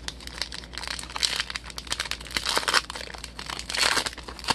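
The foil wrapper of a 2020 Panini Prizm baseball card pack crinkling and tearing as it is handled and opened. The crackle rises in three louder swells.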